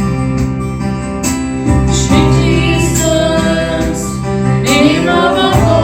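Slow gospel worship music: keyboard and guitar playing sustained chords, with a singing voice gliding over them from about two seconds in.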